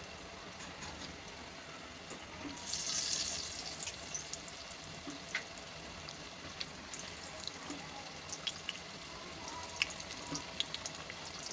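Battered potato-slice pakoras frying in hot oil: a steady sizzle with scattered pops and crackles, swelling to a loud hiss about two and a half seconds in as another battered slice goes into the oil.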